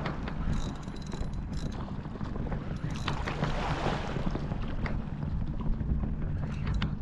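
Wind buffeting the microphone, a steady low rumble, with sea water noise and a few light clicks.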